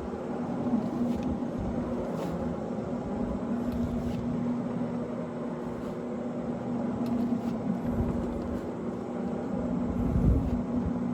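Rotary carpet-cleaning machine running steadily, its 1.5 hp electric motor giving a constant hum over a broad scrubbing noise.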